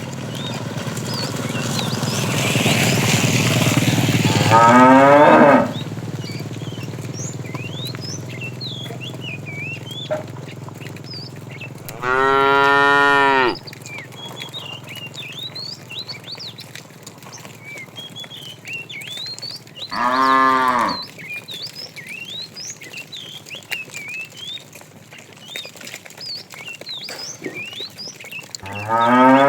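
Cattle mooing: four loud moos, the first long and swelling over about five seconds, the others shorter and roughly eight seconds apart. Small birds chirp faintly in between.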